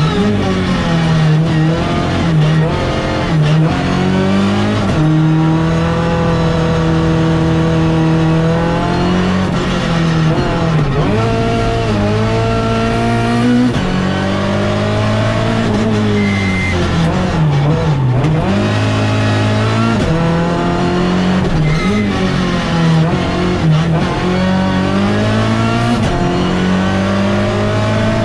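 Citroën C2 race car's four-cylinder engine heard from inside the cabin, revving up hard and dropping back again and again as the car accelerates and slows, mostly in second gear.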